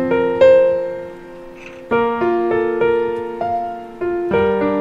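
Background piano music: single notes and chords struck one after another, each left to ring and fade.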